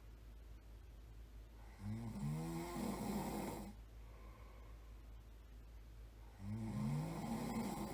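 A person snoring in sleep: two long snores, each about two seconds, some four and a half seconds apart, their pitch rising at the start of each. A steady low hum runs underneath.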